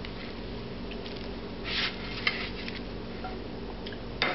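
A thin crêpe-like pancake being lifted from a nonstick pan with a silicone spatula and slid onto a plate: a short scraping swish, a few light clicks of pan and utensil, and a sharper knock near the end, over a steady low hum.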